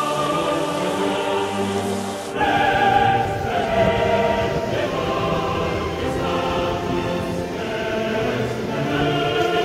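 Choral music: a choir singing held chords. About two seconds in, the track cuts abruptly to a new passage.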